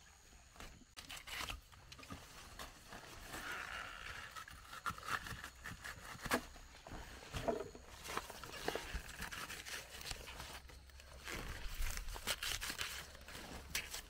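Large taro leaves rustling and their stalks snapping and tearing as they are broken off by hand, with irregular crackles and snaps.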